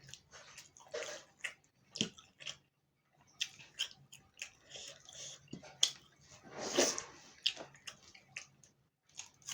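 Close-miked chewing and wet mouth sounds of someone eating chicken curry with rice: irregular short smacks and clicks, with a longer, louder wet sound about seven seconds in.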